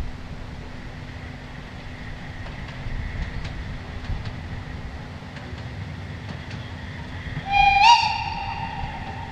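Narrow-gauge steam train rumbling along, its locomotive giving one long steam-whistle blast about seven and a half seconds in that steps slightly up in pitch as it opens, then holds steady.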